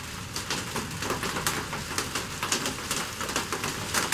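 Irregular light clicks and taps, a few a second, from a wooden tankard and a brush being picked up and handled on a workbench.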